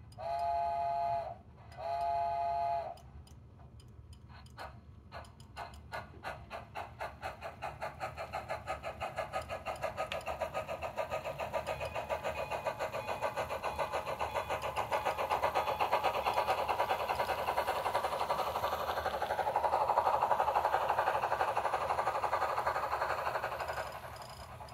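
Sound-equipped HO-scale steam locomotive: two short whistle blasts, the signal to proceed, then steady chuffing that starts slow and quickens as it pulls away, growing louder as the train passes and dropping off near the end.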